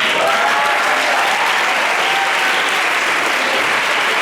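Theater audience applauding steadily, with a few cheers or voices rising above the clapping.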